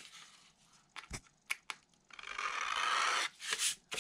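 A thin plastic template sheet with masking tape being handled and slid on a paper plan: a few light taps and clicks, and a rasping scrape about a second long in the middle.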